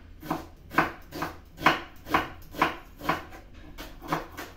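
Kitchen knife chopping an onion on a wooden cutting board: a steady series of sharp strokes, about two a second.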